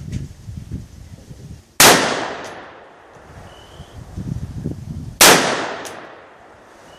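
Two AR-15 rifle shots about three and a half seconds apart, each a sharp crack followed by a fading echo.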